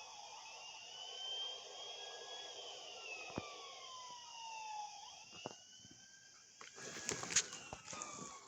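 Emergency vehicle siren wailing in slow rising and falling sweeps, more than one tone overlapping. Crackling knocks come in near the end.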